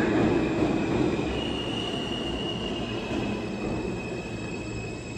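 An R160 New York City subway train pulls into the station and slows to a stop. Its wheels rumble steadily on the rails, with a thin high squeal that starts about a second in and sinks slightly in pitch, while the overall sound fades as the train loses speed.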